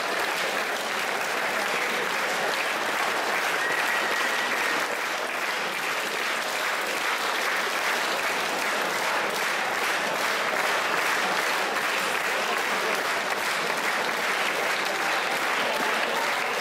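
Audience applauding steadily, the dense clapping of a large crowd of many hands.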